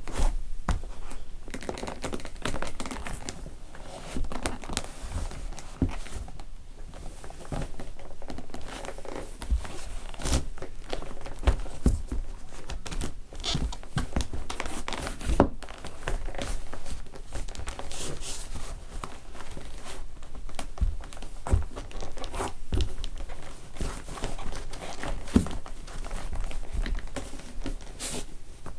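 Old leather linesman work boots being trampled and crushed under cowboy boots on a wooden floor: the leather crumpling and rustling, with repeated sharp heel knocks on the boards throughout.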